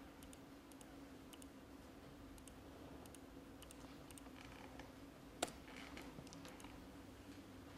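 Faint laptop keyboard typing: scattered, irregular key clicks, with one sharper, louder click about five and a half seconds in.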